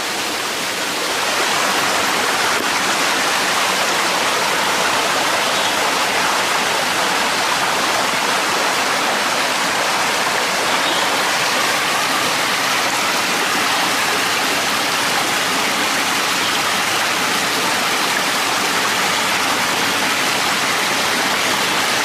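Small stream flowing, a steady rush of water that grows a little louder about a second in.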